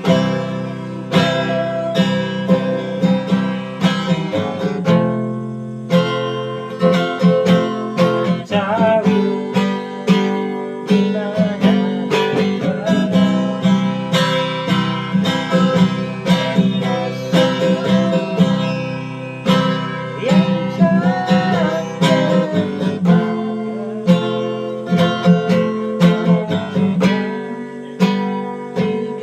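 Acoustic guitar music: a steady run of plucked and strummed notes.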